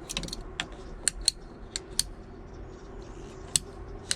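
Irregular light clicks and rattles of electrical cable being handled and pushed at a drilled hole, over a steady low hum.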